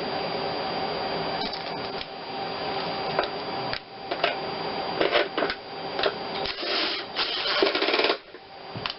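Hand ratchet wrench clicking in short spells as new bolts are run into the engine, with a few metallic knocks, then a longer fast run of clicks near the end, over a steady shop hum.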